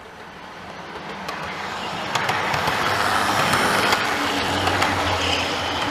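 OO gauge model train running past close by on its track, the wheels rumbling with scattered clicks, getting louder over the first two seconds as it approaches and then holding steady, with a low hum under it.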